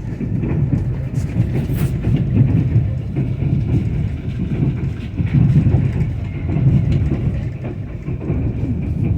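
Passenger train running along the rails, heard from inside the carriage: a steady low rumble, with a few light clicks between one and two seconds in.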